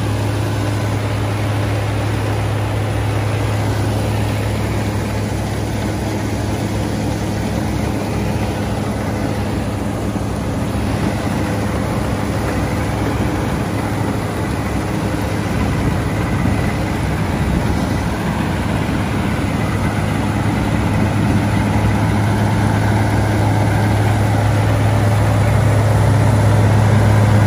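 Mahindra 595 Turbo diesel tractor engine running steadily under load while driving a straw reaper, with the reaper's machinery adding a broad whirring noise over the engine's deep hum. The sound grows a little louder near the end.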